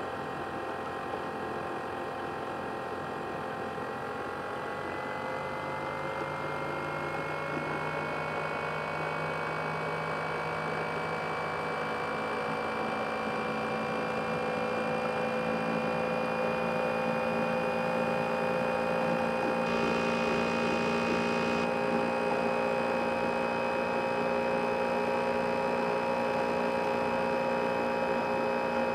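Asus X543UA laptop's CPU cooling fan running with a steady whine that rises in pitch as the fan speeds up from about four seconds in, then holds at a higher, steady pitch. A short hiss joins in about twenty seconds in.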